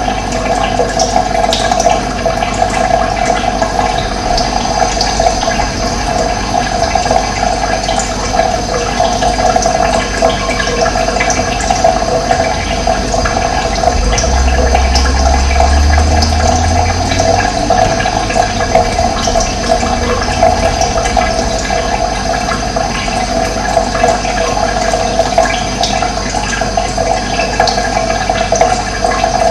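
Running water, a steady rushing flow. A low rumble swells and fades for several seconds around the middle.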